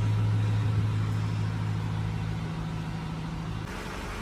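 Toyota Land Cruiser 200's V8 engine idling, a steady low hum that fades slowly. Near the end the hum gives way abruptly to a softer hiss.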